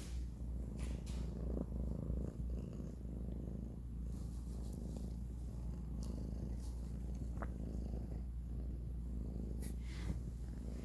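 A cat purring steadily, close by, with a few faint clicks on top.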